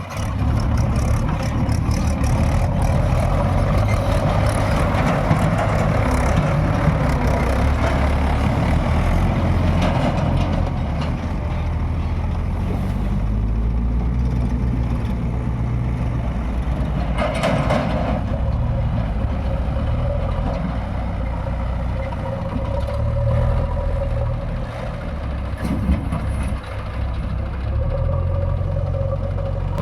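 Heavy diesel engine running under working load, a steady low drone that rises and eases with the work, with a short hiss about seventeen seconds in.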